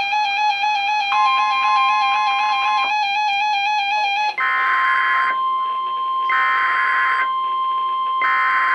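Emergency alert tones from weather radio receivers overlapping. A buzzy alert tone that wavers slightly is joined by the steady NOAA Weather Radio warning tone. About halfway through, three short raspy bursts of EAS SAME data header, about a second apart, sound over the held warning tone.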